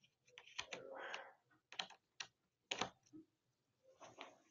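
Faint scattered clicks and a short scrape of a small screwdriver working a screw out of the bottom case of an HP Chromebook 11 G5 laptop.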